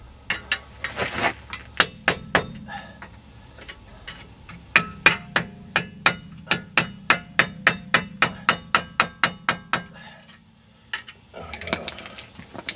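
Hammer tapping on steel, a few scattered blows and then an even run of about four sharp blows a second, working a Jeep Grand Cherokee's front hub bearing assembly loose from the steering knuckle.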